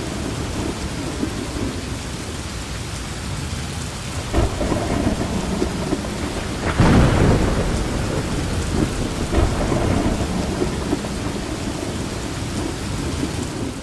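Heavy rain falling steadily with rumbling thunder, a louder thunderclap about seven seconds in.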